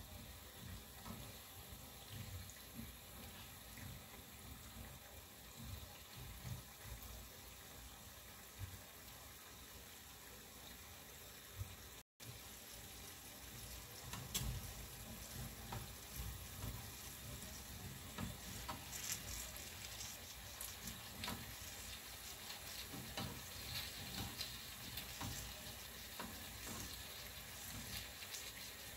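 Banana turon rolls sizzling steadily in hot cooking oil in a small frying pan, with light clicks of metal tongs as the browned rolls are turned. The sound drops out for an instant about twelve seconds in.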